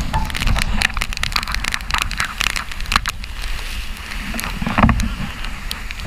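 Wind buffeting the microphone and water rushing past the hull of a Class 40 racing sailboat driving hard in storm conditions. Spray spatters the camera in a rapid run of sharp ticks, with a louder thump about five seconds in.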